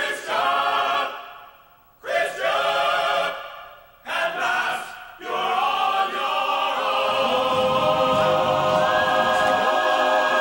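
Music intro with choir voices singing sustained chords: three short phrases that each fade out, then one long held chord from about five seconds in, with a low pulsing part entering beneath it.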